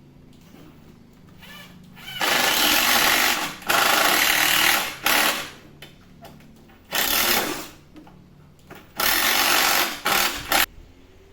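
A handheld power tool run in short bursts, about six of them, each from a moment to about a second and a half long, starting and stopping sharply.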